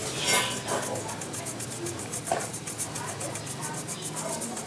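Toothbrush bristles scrubbing the rusty steel exhaust pipe of a motorcycle, wet with cola mixed with bleach, in quick back-and-forth strokes. The scrubbing is strongest near the start and fainter through the middle.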